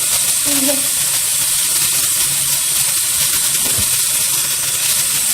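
Water running steadily from a kitchen tap into the sink.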